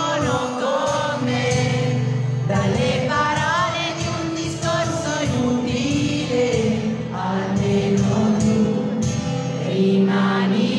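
Live pop song: a male voice singing into a handheld microphone over a strummed acoustic guitar, amplified through a PA speaker.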